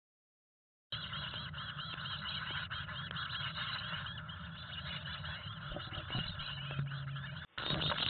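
Chickadee nestlings begging: a rapid run of high, repeated chirps starting about a second in, heard from inside the nest box as a parent arrives with food, with a few faint knocks of movement in the box.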